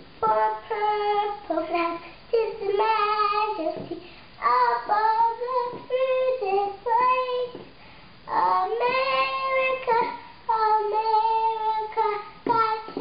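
A young girl singing unaccompanied, in short phrases with brief breaths between them, holding one long note about two-thirds of the way through.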